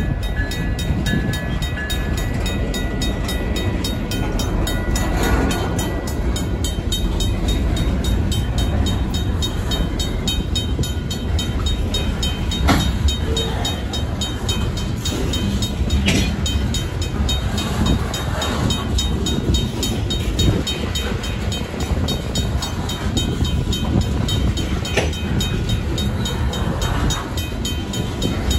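Freight train of covered hopper cars rolling past a grade crossing, a steady heavy rumble with occasional sharp clanks of wheels over the rail joints. A RACO mechanical crossing bell strikes on and on, and a high steady tone fades out a few seconds in.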